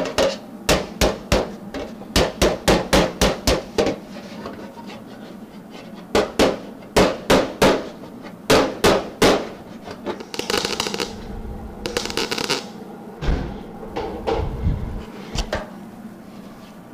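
A small hammer tapping a steel filler panel on a car dashboard to bring its centre up, in two runs of sharp metallic taps about three a second. Near the middle come two short hissing bursts.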